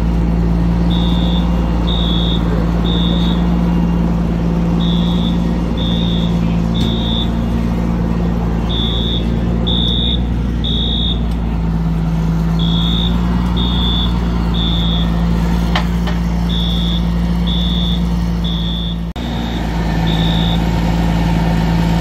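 A fire alarm beeps in the temporal-three evacuation pattern: three high beeps about a second apart, repeating every four seconds. Under it a diesel fire truck idles with a steady low drone. There is a brief break in the sound near the end.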